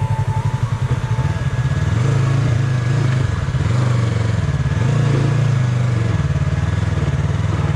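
Motorcycle engine running under load, its pitch rising and falling twice as the throttle is worked on a rough off-road track.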